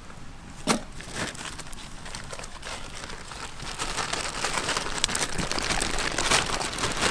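Clear plastic bag crinkling and rustling, louder in the second half, as chopped vegetables are shaken out of it; a single sharp tap about a second in.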